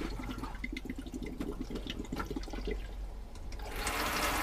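Water starting to gush from the caravan's hot tap and shower into the plastic basin about three and a half seconds in, once the tap is opened and its microswitch sets the water pump going. Before that there is only a faint, irregular patter.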